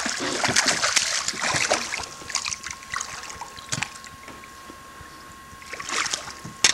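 Hooked largemouth bass splashing and thrashing at the water's surface as it is reeled in to the boat, busiest in the first two seconds, with another short splash near the end.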